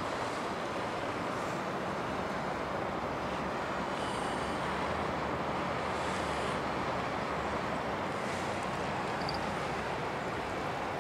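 Steady rushing ambience of a city river: traffic noise blended with moving water, with a faint low hum underneath and a few brief hissy swells.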